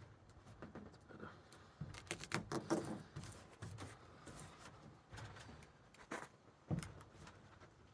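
Faint handling noises from the plastic roof-box shell being worked by hand: scattered light clicks, knocks and rustling, busiest about two to three seconds in, with a sharper knock near the end.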